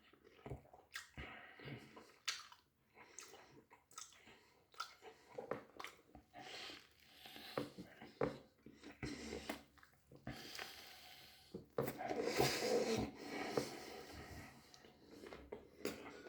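A person chewing and biting into a doner kebab, with many short wet smacks and clicks of eating; a louder noisy stretch comes about twelve seconds in.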